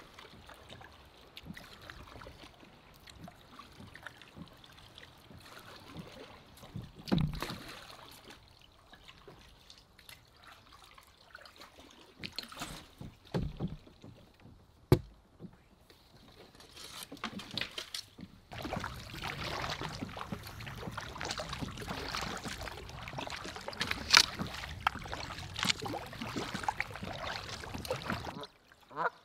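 Canoe on the water: paddle strokes and water sloshing, with a few sharp knocks against the hull. The water noise grows louder and busier in the second half.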